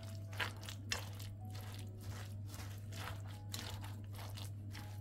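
A fork stirring chopped spinach with feta and yogurt in a glass bowl, giving irregular wet crunching strokes about twice a second.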